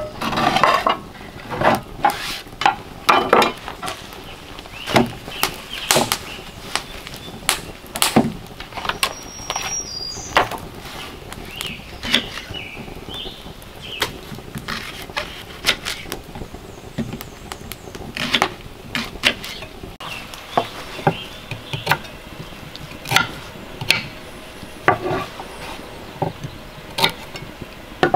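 Kitchen knife cutting and knocking on a wooden cutting board while radishes are trimmed: irregular sharp taps, a few a second, with now and then a clink of kitchenware.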